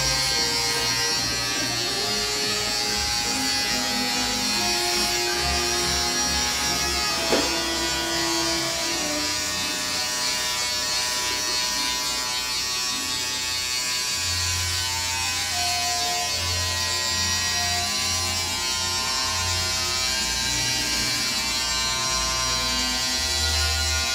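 Corded electric hair clippers buzzing steadily as they shave close over a nearly bald scalp, with one sharp click about seven seconds in.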